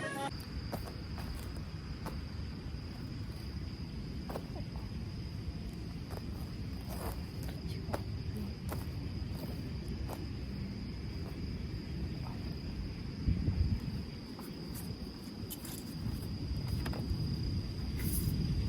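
Crickets trilling in one steady, unbroken high-pitched tone over a low, uneven rumble of wind buffeting the microphone, with a stronger gust about two-thirds of the way through.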